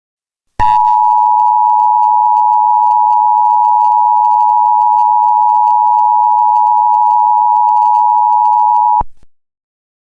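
Emergency Alert System attention signal: a loud, steady two-note alert tone that starts about half a second in, holds unchanged for about eight seconds, and cuts off suddenly near the end.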